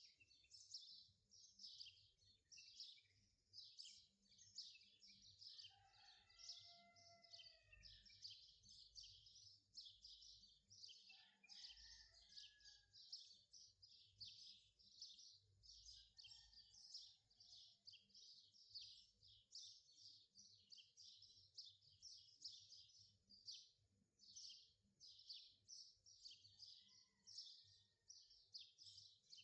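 Faint birdsong: rapid high chirping throughout, with a few lower, slurred whistled calls now and then.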